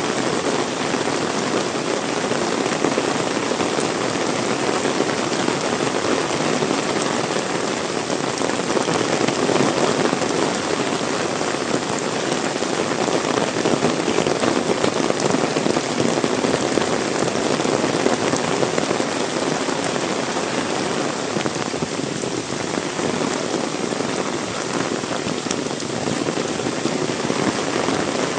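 Heavy rain pouring steadily, a constant dense hiss of rain on surfaces.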